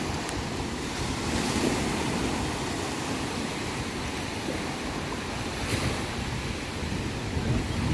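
Sea waves washing onto the shore in a steady surf, with wind buffeting the microphone.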